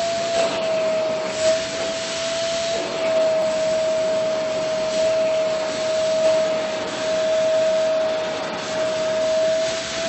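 Vacuum cleaner running with a steady high whine and rushing air, sucking through the bare wand with the carpet beater attachment taken off as the wand is drawn over a cat's fur. The whine dips briefly now and then.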